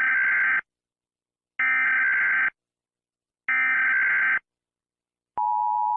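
Emergency Alert System SAME header: three bursts of warbling data tones, each just under a second long with about a second between them. About five seconds in, the steady two-note EAS attention tone begins.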